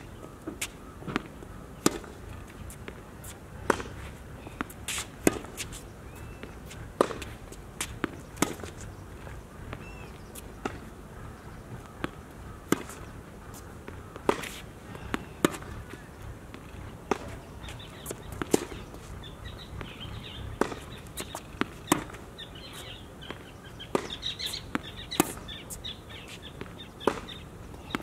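Tennis ball being hit back and forth in a rally on a hard court: sharp pops of racket strikes and ball bounces, about one every second or two, some in quick pairs.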